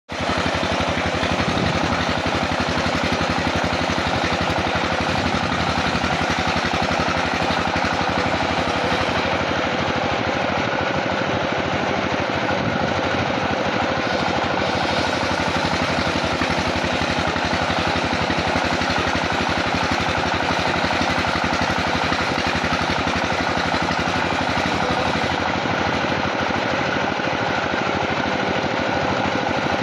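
Sawmill machinery running steadily: a loud, dense mechanical din with a fast, even rattle.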